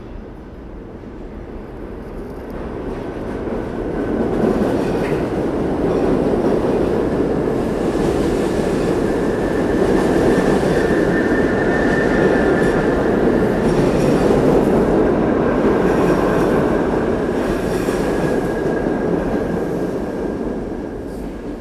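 New York City subway express train on the BMT Broadway Line running through the station without stopping. The rumble builds over the first few seconds, holds loud with wheels clattering over rail joints and a thin high wheel squeal, then fades near the end.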